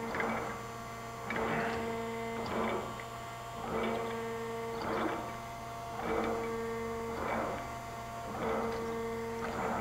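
Clausing Equiptop hydraulic surface grinder running in automatic, with a steady hum from the spindle motor and hydraulic pump. Over the hum, a hiss swells and fades about once every 1.2 seconds as the table reverses back and forth.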